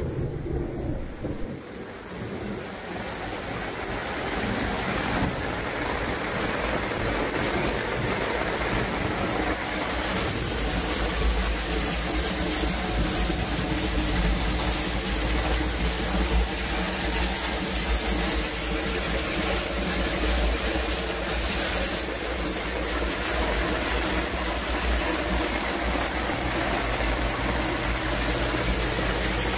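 Storm water pouring from a drain pipe and splashing into a sump basin in heavy rain: a steady rushing, splashing noise that grows louder over the first few seconds and then holds, with a low rumble underneath.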